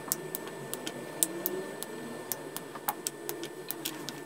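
Milk chocolate squares being handled and dropped into a pan of warm cream: scattered, irregular light clicks and crackles over a faint steady high whine.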